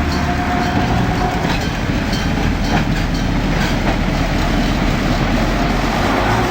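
Freight train rolling over a level crossing: steady rumble of wagons, with scattered clicks from the wheels over rail joints.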